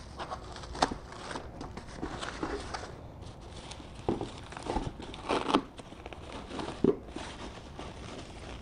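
Packing paper crinkling and rustling as it is unwrapped by hand from a car grille in a cardboard box, in irregular handfuls with a few louder crackles.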